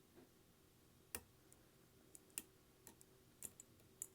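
Faint, irregular small clicks, about half a dozen, of a Lishi M1 pick working the pins inside a Master padlock.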